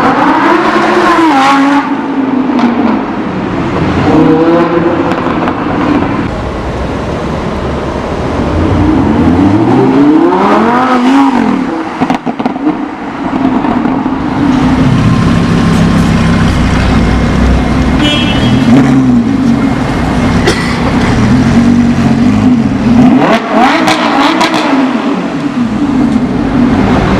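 Lamborghini Huracán LP 610-4's naturally aspirated 5.2-litre V10 revving and accelerating, its pitch climbing and falling several times with a steadier stretch in the middle, and a few sharp pops and crackles when the throttle lifts.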